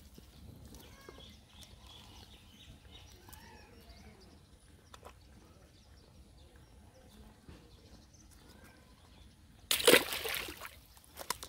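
Cast net and fish being handled by hand: quiet, with faint bird chirps, then a loud rustling burst lasting about a second near the end.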